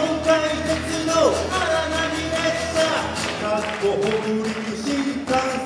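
A man singing to acoustic guitar accompaniment, holding long notes that fall off at their ends.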